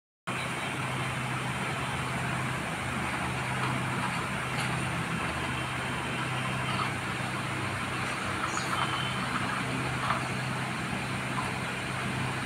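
Vehicle driving along a dirt forest road, heard from inside the cabin: steady engine hum with road and tyre noise throughout.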